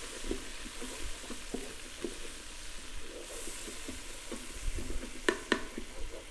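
Butter sizzling and foaming in a hot pot on high sauté, with a wooden spoon stirring and scraping the bottom to loosen the meat drippings. There are two sharper knocks of the spoon a little over five seconds in.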